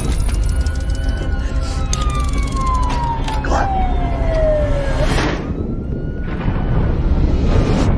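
Trailer sound design: a gliding synthetic tone rises briefly, then slides slowly down over about four seconds, siren-like, above a deep steady drone. Whooshes sweep through it several times, the strongest about five seconds in and again near the end.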